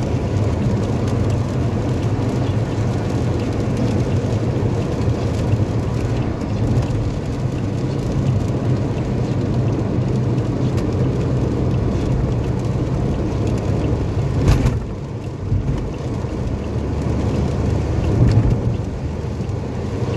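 Steady tyre and road rumble inside a car's cabin as it drives a wet highway in heavy rain, with rain noise on the car. One sharp knock comes about two-thirds of the way through, and the noise drops briefly after it.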